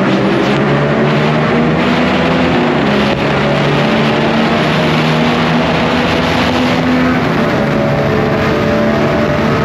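Sport motorcycle engine and exhaust running at moderate, fairly steady revs. The pitch sags a little over the first few seconds, holds, then dips slightly near the end.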